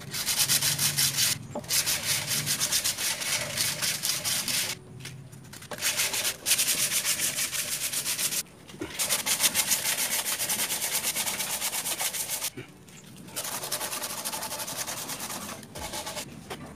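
Wooden ladle being hand-sanded with a sheet of sandpaper: quick back-and-forth rubbing strokes in several runs, broken by short pauses.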